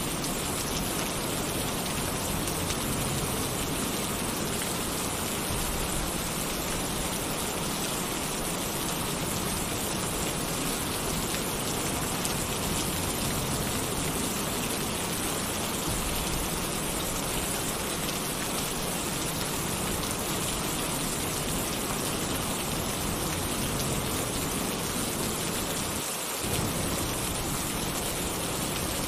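Heavy rain pattering steadily on a tin roof, with a low thunder rumble underneath that briefly drops out near the end.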